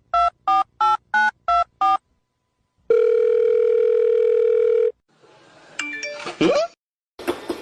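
Touch-tone phone dialing: about eight quick two-tone keypad beeps, followed after a short pause by one two-second ringback tone of the line ringing. A brief, unclear sound with a quick rising glide comes about six seconds in, and another sound starts just before the end.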